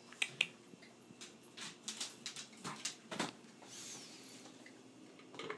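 A dog's claws clicking and pattering on a vinyl tile floor as it moves about: a run of sharp, irregular clicks, thickest in the middle and with one more near the end.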